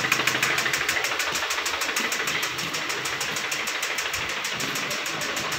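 The 2015 Kia Sportage's four-cylinder engine is idling with a fast, regular knock, the engine knock the mechanic is sure of after the sludged engine was given an oil flush. It fades slightly.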